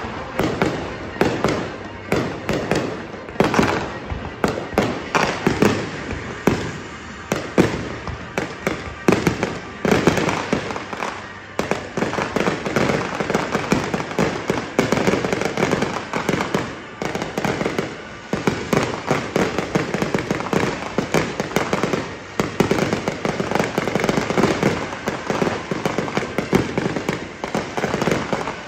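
Aerial fireworks display: shells bursting in a continuous barrage, many sharp bangs and pops every second.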